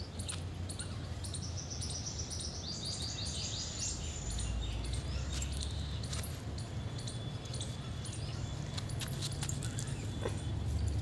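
Birds chirping, with a quick run of high, rapid chirps about a second or two in and scattered short calls after, over a low steady outdoor rumble.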